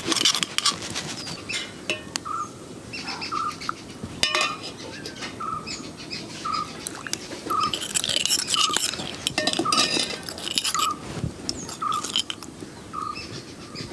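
Metal pot and spoon clinking and scraping as spices are stirred into simmering rasam. In the background a bird repeats a short note about once a second.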